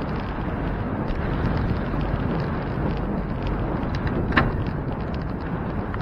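Steady wind buffeting the microphone of a camera mounted on a moving bicycle, over low road rumble, with faint scattered ticks. A single sharp click sounds a little over four seconds in.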